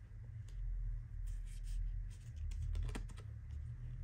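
Photocards being handled and shuffled between fingers, a run of small crisp clicks and slaps that comes thickest about three seconds in, over a low steady rumble.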